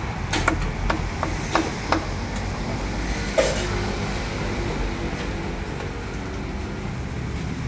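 A meat cleaver knocking on a round wooden chopping block, several sharp chops in the first few seconds and the loudest about three and a half seconds in, over a steady low rumble of street traffic.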